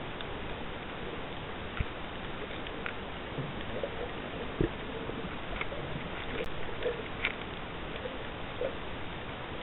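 Underwater reef ambience recorded with the camera submerged: a steady hiss with scattered small clicks and pops, and two sharper knocks about 2 and 4.5 seconds in.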